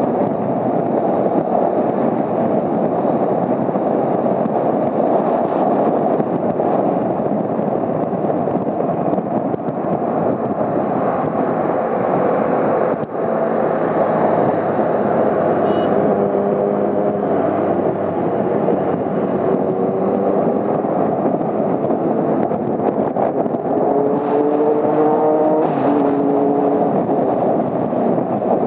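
Onboard sound of a Honda CBR250R motorcycle being ridden: steady wind rush with the engine running underneath, its note shifting in pitch near the end.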